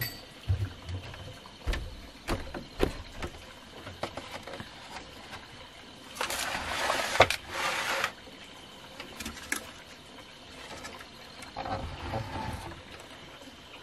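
Scattered knocks and soft thumps as a meal is set down and arranged on a low wooden table over a bamboo-slat floor. About six seconds in comes a two-second rustle, the loudest sound.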